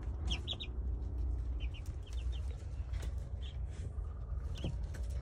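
Young Silkie chickens chirping: short high peeps scattered throughout, several in quick runs of two or three, over a low rumble of the phone being handled.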